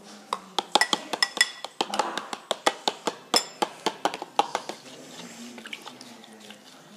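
A spoon clinking quickly against a mixing bowl as the slime mixture is stirred. The run of clinks stops about four and a half seconds in.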